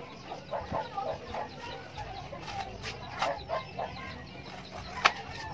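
Chickens clucking in a run of short calls, with a sharp tap about five seconds in.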